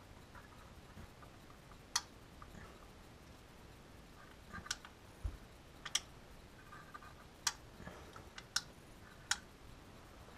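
Quiet, scattered sharp clicks and light taps of small metal tools and parts being handled at a bench vise during cable-end soldering, about six clicks over ten seconds with faint rustling between.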